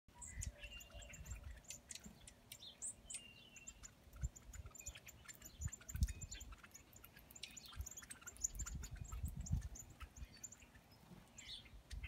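Mixed flock of songbirds, northern cardinals and red-winged blackbirds among them, giving many short, high chip calls at a ground feeding spot. Bursts of low rumble come and go, loudest about six seconds in and again after eight seconds.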